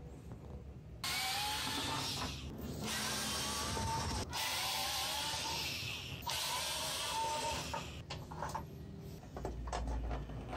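Cordless electric screwdriver running in four bursts of a second or two each, with a faint whine, driving out the screws of a CRT monitor's plastic case. Near the end, scattered light clicks and knocks.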